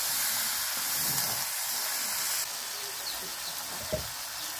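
Chicken pieces sizzling as they fry with spice paste in a metal wok, with a steady hiss. A single sharp clink near the end, as the metal spatula strikes the wok.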